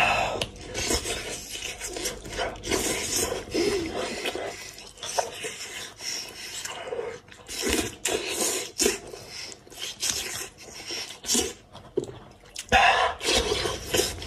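Close-up eating sounds from a man working through a braised goat's head by hand: wet sucking, slurping and chewing in irregular bursts, loudest right at the start and again near the end.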